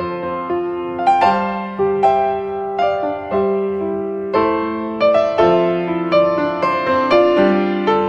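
Piano music: single notes and chords struck at an unhurried pace, each one ringing and fading before the next.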